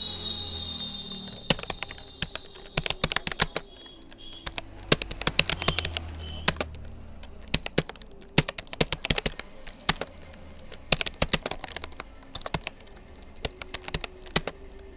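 Typing on a Rapoo computer keyboard: fast key clicks in uneven runs, broken by brief pauses of half a second to a second.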